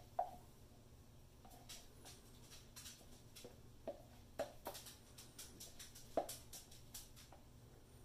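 Spatula scraping and tapping against a plastic pitcher as the last of the soap batter is scraped out. About eight short, soft scrapes and clicks at uneven intervals, the sharpest about six seconds in.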